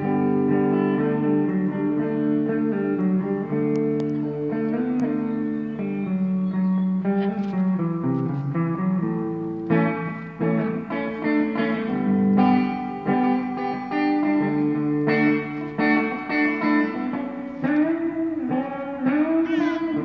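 Guitar jam: plucked guitar notes ringing over one another in a slow, meditative stream. Near the end a few short gliding, arching notes join in.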